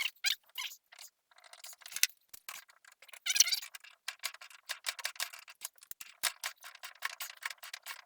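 Teflon (PTFE) thread tape being pulled off the roll and wound around a fitting's threads, making a dense, irregular crackling and clicking.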